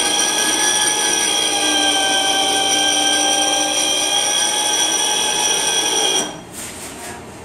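Electric motor of a central-office 48 V battery emergency-group switch running, turning its gears and screw shafts with a steady whine as it switches the emergency battery groups back out; it stops abruptly about six seconds in.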